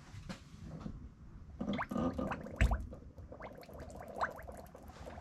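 Air bubbles gurgling up through the bleeder tubes into the brake master cylinder's fluid reservoir as the brake pedal is pumped: air being purged from the master cylinder. A dull thump comes about halfway through.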